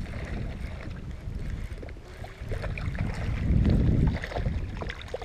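Wind rumbling on the microphone, swelling about three and a half seconds in, with scattered small clicks and splashes as a hooked pickerel is played toward a kayak on a rod.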